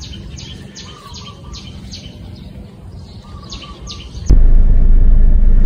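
A bird calling with a quick series of short high chirps, each sliding down in pitch. About four seconds in it cuts off abruptly to the loud low rumble of a car's cabin on the move.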